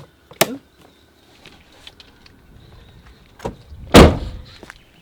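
A van door shut once, with a single loud thud about four seconds in, just after a light click.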